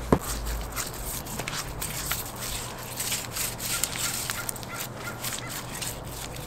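Gloved hands rubbing and patting basting liquid into a raw, butterflied whole pig carcass, making small irregular wet clicks and rustles. There is one sharp click just after the start.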